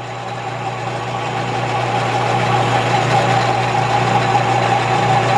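Metal lathe running, its tool cutting a taper on a wooden handle: a steady motor hum with a higher tone over the hiss of the cut, growing gradually louder.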